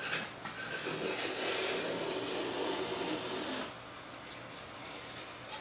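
Small hand plane shaving along the leading edge of a balsa vertical stabiliser: one steady scraping stroke of nearly three seconds, starting about a second in.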